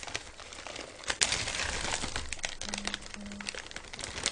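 Plastic instant-ramen packet crinkling and rustling as crushed noodle pieces are shaken out of it into a pot, with a dense run of crackles from about a second in.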